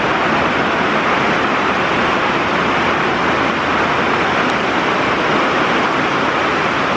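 Heavy rain on the shop's metal roof: a loud, steady hiss with no breaks.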